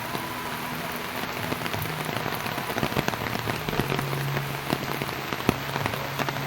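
Steady rain falling, with the sharp ticks of individual drops hitting nearby surfaces throughout, over a low hum.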